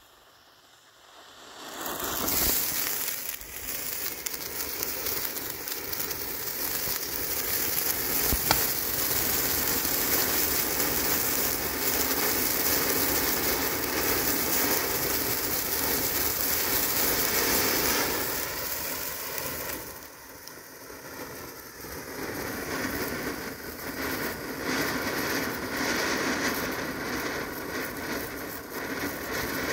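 Vintage 'Flower Arbour' ground fountain firework catching about two seconds in and spraying sparks with a dense, steady rushing noise full of small crackles. A single sharp pop comes about eight seconds in, and the spray eases briefly around twenty seconds before picking up again.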